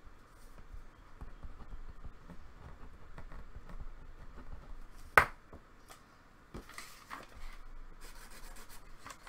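A paper sheet being handled at close range: soft rubbing and scratching, with one sharp click about five seconds in and a few weaker clicks after it. Near the end there is a denser scratchy rustle as the sheet is lifted and curled back.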